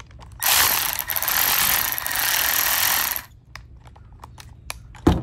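Cordless power ratchet spinning a Blue Point chain-drive wrench, its motor and the wrench's internal chain and gears whirring steadily for about three seconds before stopping. Afterwards a few light clicks and one sharp knock near the end.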